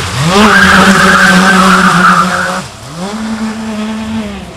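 Electric RC speed boat's motor whining under throttle: the pitch rises quickly and holds for about two and a half seconds, drops, then rises and holds again until near the end. A loud hiss rides over the first run as the boat passes close.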